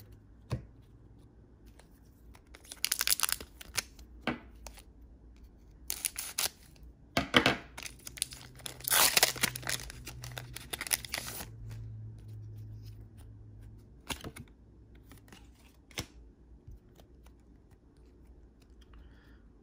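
Foil Pokémon booster pack wrapper being torn open and crinkled by hand, in several short bursts and one longer tear about eight to eleven seconds in, then only faint clicks of cards being handled.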